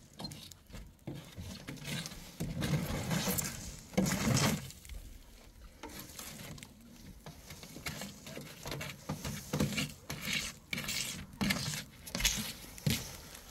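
Sand and gravel being swept and scraped across a metal truck bed with a bundle of dry twigs and a flat wooden board: irregular brushing and scraping strokes, one louder stroke about four seconds in.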